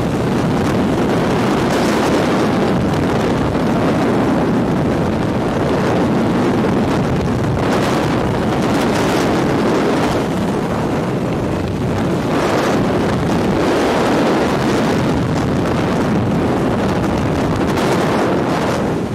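Wind rushing over a skydiver's camera microphone during descent: a loud, steady roar of air that swells briefly every few seconds.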